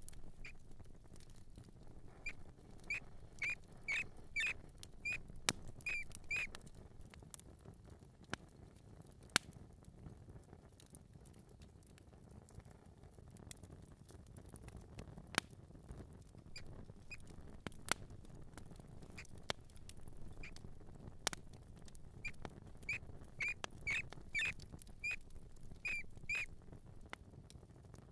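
Mouse squeaking in quick runs of short, high chirps, one run in the first few seconds and another near the end, with scattered sharp clicks in between.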